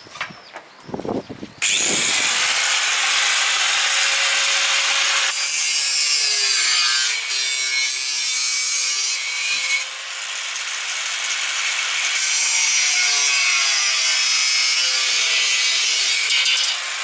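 Power tool cutting into a workpiece: a loud, steady rasping hiss that starts suddenly about one and a half seconds in, with the motor's whine wavering in pitch under load.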